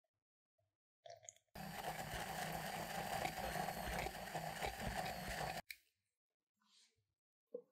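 Stick blender running in a glass jug, puréeing banana, sugar and cream: a loud steady whirr for about four seconds that cuts off suddenly.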